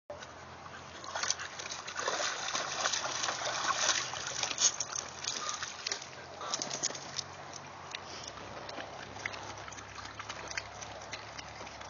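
Water splashing and sloshing in a plastic kiddie pool as a Wheaten Terrier steps and moves about in it, dying down about eight seconds in.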